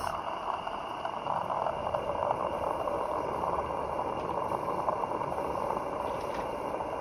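Steady hiss from a Maxitrak 3/4-inch Sentinel DG6 live-steam model wagon standing still in steam.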